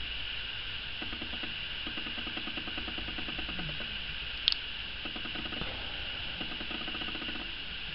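Steady background hiss with a faint low buzz that comes and goes, and one sharp click about four and a half seconds in.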